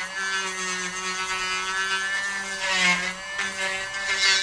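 Handheld rotary tool running with a high whine as its small bit grinds the rough edge of a hole in flexible magnetic sheet. The pitch sags briefly about three seconds in as the bit bites, with short bursts of gritty grinding noise.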